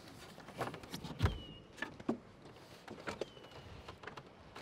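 Handling noise from a fiberglass casement window being lifted out of a framed rough opening: scattered knocks and scuffs, with a dull thump about a second in as the loudest sound.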